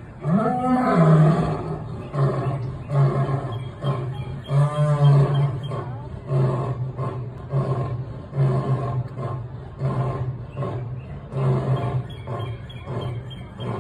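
Male African lion roaring: a long full roar at the start, then a run of shorter, clipped roars about one a second, growing weaker toward the end, the closing part of a lion's roaring bout.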